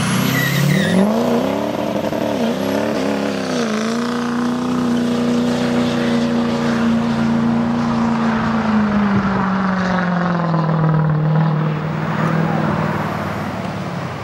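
Ford F-250 Super Duty's diesel engine revving hard during a burnout and pull-away. The pitch climbs and wavers for the first few seconds, holds high, then drops and fades near the end as the truck moves off.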